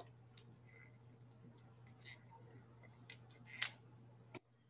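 Faint scattered clicks and light taps of dry-erase markers being handled, the sharpest about three and a half seconds in, over a low steady hum.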